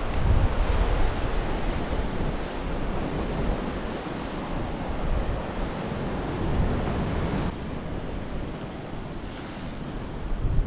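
Ocean surf washing on a rocky shore, with wind rumbling on the microphone. The hiss eases a little in the last few seconds.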